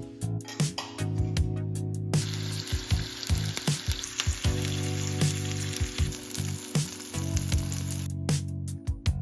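Background music with sustained low notes. From about two seconds in to about eight seconds in, a steady hiss sits under it, and short clicks and taps come throughout.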